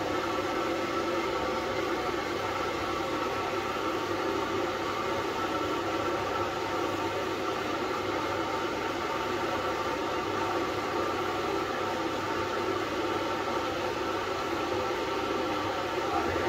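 Blow dryer running steadily, blowing air on a wet Yorkshire Terrier puppy's coat: an even rush of air over a motor hum.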